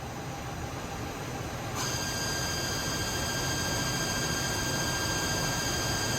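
Hardinge VMC 1000P3 CNC vertical machining center running with a steady mechanical hum. About two seconds in, a steady high whine of several tones sets in and holds, the sound of the machine's drives starting up.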